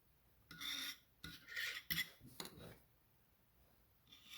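Short scrapes and clinks of metal vise parts being handled while lubricant is put on them, in several brief bursts with a couple of sharp clicks.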